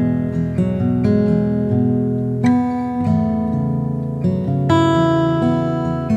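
Acoustic guitar music, plucked and strummed chords, with a fresh chord struck every second or so.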